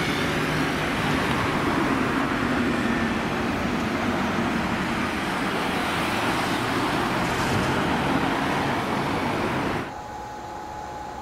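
Red double-deck S-Bahn train running over a railway bridge: a steady rushing rumble of wheels on rails. It breaks off abruptly near the end to a much quieter hiss with a faint steady tone.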